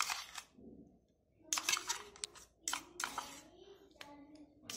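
Several short scrapes and clinks of kitchen utensils against steel containers as marinade ingredients are added to a steel bowl of raw chicken, about one a second, with faint voices underneath.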